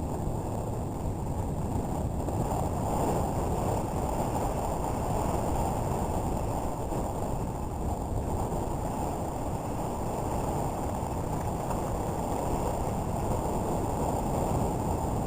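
Steady rushing noise of wind buffeting the microphone while riding behind a running dog team.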